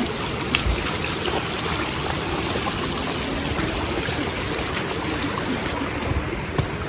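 River water flowing over rocks, a steady rushing.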